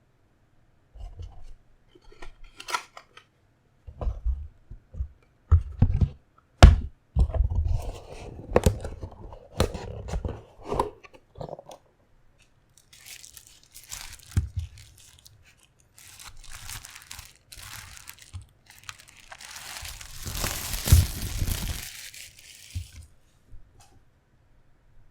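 Hands handling packaging: a run of sharp knocks and clacks, then crinkling and tearing of wrapping, loudest about twenty seconds in.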